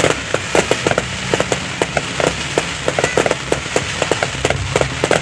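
Fireworks crackling: a dense, irregular run of sharp pops and bangs, many a second, over a steady low rumble.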